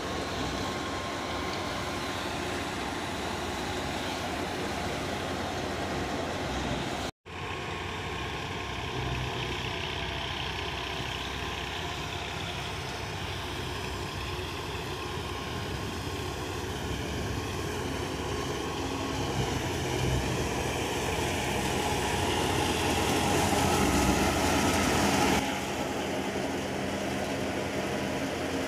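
Tractor-driven sesame thresher running steadily, with the Massey Ferguson 240's diesel engine under load driving it by belt as stalks are fed in. The sound cuts out for a moment about seven seconds in.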